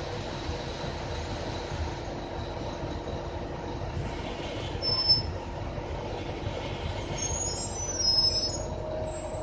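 Interior ride noise of an empty RTS transit bus in motion: a steady low rumble and drone, with a high-pitched squeal about five seconds in and more squealing from about seven to eight and a half seconds.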